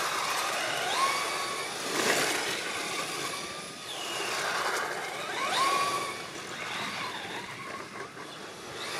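Traxxas Slash 4x4 VXL RC truck driving, its brushless electric motor whining up in pitch several times as it accelerates, over a steady hiss of tyre and ground noise.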